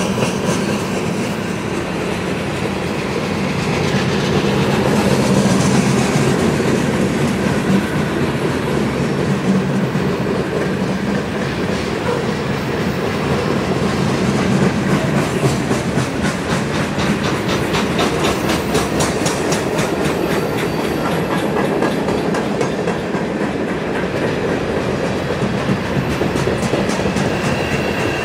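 A CSX mixed freight train's cars rolling past: a steady rumble of steel wheels on rail, with runs of rapid clicking from the wheels that are thickest in the middle stretch.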